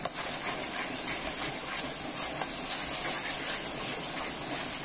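Spiced tomato and green-chilli paste sizzling in hot mustard oil in a metal kadai, a steady high hiss. A metal spatula stirs and scrapes through it, giving light scraping ticks.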